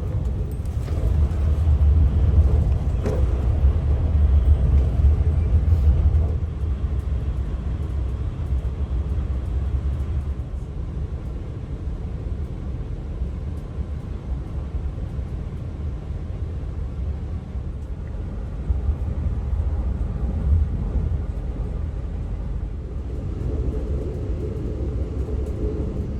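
SNCF passenger train rumbling along, a steady low rumble that is loudest in the first few seconds and then settles.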